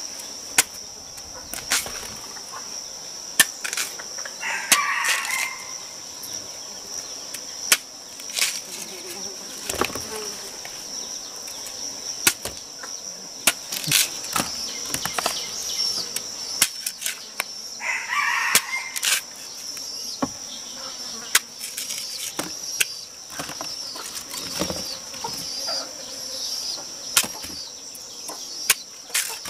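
A knife cutting raw peeled yam into chunks, with irregular sharp cuts and taps against the tuber. A steady high insect drone runs under it, and a rooster crows twice, once a few seconds in and again past the middle.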